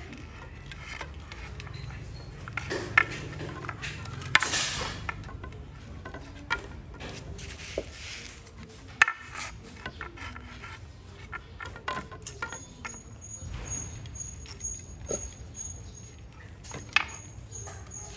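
Hand work lashing hollow bamboo poles with plastic cord: scattered sharp clicks and knocks of the bamboo against each other and the concrete floor, with short swishes of the cord being pulled and wound tight.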